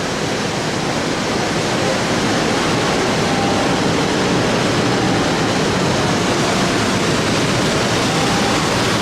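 Indoor waterfall: water pouring down from a bowl at the top, a steady, even rush of falling water.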